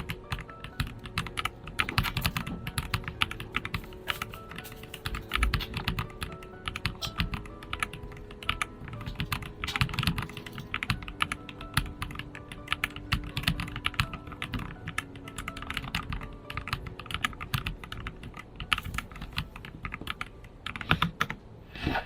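Typing on a Fopato mechanical keyboard with pre-lubed TTC Neptune switches, a PC plate and silicone foam: a steady run of quick, irregular keystroke clacks, a keyboard sound demo.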